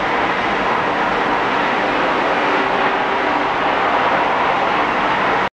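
Loud steady rushing background noise with no clear source, which cuts off suddenly near the end.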